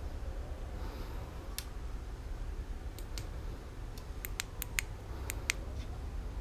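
Sharp, small clicks and taps of hard parts or tools being handled, about a dozen, mostly bunched in the second half, over a steady low hum.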